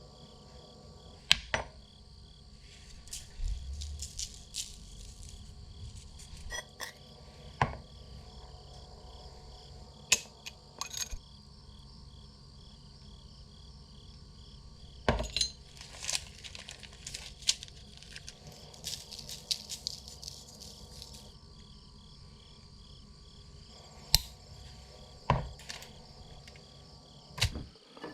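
Crickets chirping steadily in a fast, even pulse, with about a dozen scattered sharp clinks and knocks of cooking utensils and cookware.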